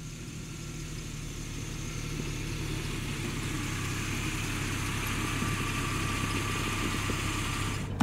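An 80s station wagon's engine running as the car drives slowly toward the listener, a steady low hum that grows gradually louder as it approaches.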